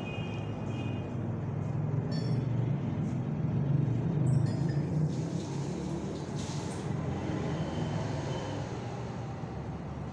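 Steady low background rumble, with a few faint short whistle-like tones near the start and again about two and four seconds in.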